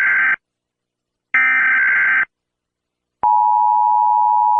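Emergency Alert System tones: the tail of one short burst of warbling digital data tones, a second burst about a second later, then, about three seconds in, the steady two-tone attention signal starts and holds.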